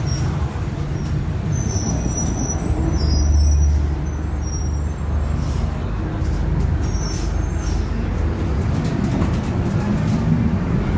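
Cabin sound of a Caio Apache VIP II bus on a Mercedes-Benz OF-1721 BlueTec5 chassis under way: the drivetrain runs with a low drone from the rear differential, which growls, and the drone swells a few seconds in. Brief high squeaks and light rattles from the bodywork sound over it.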